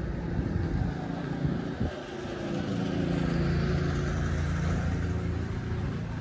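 A motor vehicle's engine running close by as a low, steady hum, growing louder a couple of seconds in and easing off near the end.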